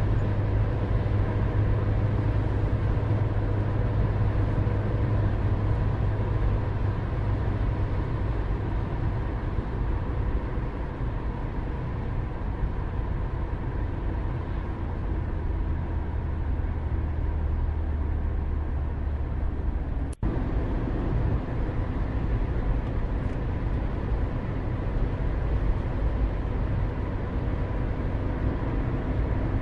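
Steady low rumble of distant town traffic with a faint steady hum, broken by a brief dropout about twenty seconds in.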